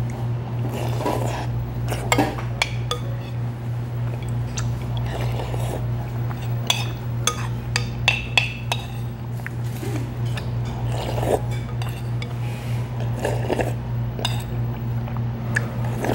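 A metal spoon clinking and scraping against a ramen bowl during eating, in short scattered clicks over a steady low hum.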